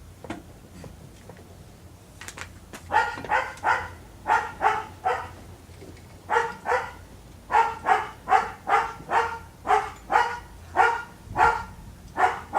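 A dog barking in short, sharp barks: a few small groups from about three seconds in, then a quick steady run of about two barks a second through the second half. A few faint clicks come just before the barking starts.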